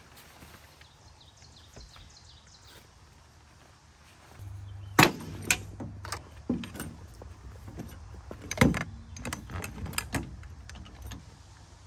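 Metal awning poles knocking and clattering against each other and the truck's tailgate as they are handled and packed into their bag. After a few quiet seconds there is a string of sharp knocks, the loudest about five seconds in and again near nine seconds.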